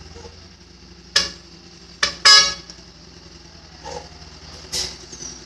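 Vehicle horn sounding in short toots: two quick ones, then a longer, loudest one about two seconds in, and a last one near the end, over a low steady engine hum.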